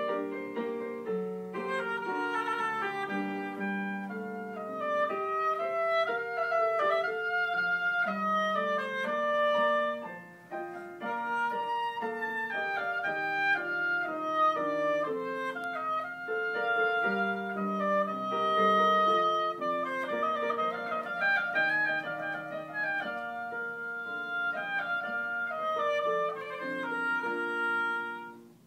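Oboe playing a classical solo melody with piano accompaniment. The music stops just before the end.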